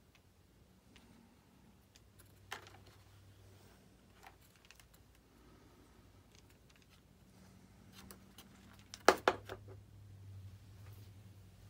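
Scattered faint clicks and taps of small parts being handled while an RC jet's retract landing-gear unit is taken apart, with a louder cluster of sharp clicks about nine seconds in.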